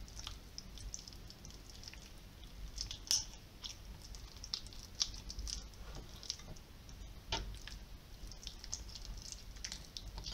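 Quiet, moist squishing of raw chicken meat as a grated cheese and garlic filling is pressed into a pocket cut in it, with scattered light clicks of a metal spoon scooping filling from a bowl.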